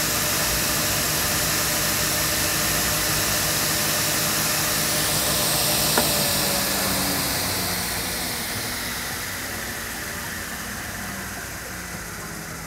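Altendorf F45 sliding table saw running under no load, its main saw blade and scoring blade spinning with a steady whirring hiss. A single sharp click comes about six seconds in, and the sound gets gradually quieter over the last few seconds.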